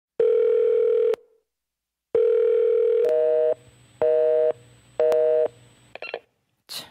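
Telephone tones: a steady dial tone sounds twice for about a second each, then three short two-pitch beeps come about a second apart, with a couple of brief faint noises near the end.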